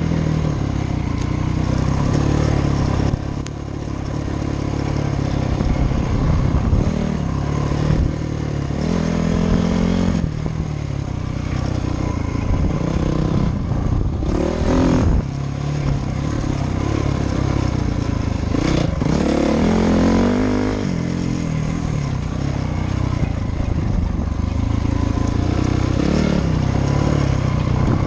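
Dirt bike engine being ridden along a trail, revving up and dropping back several times as the throttle is opened and closed.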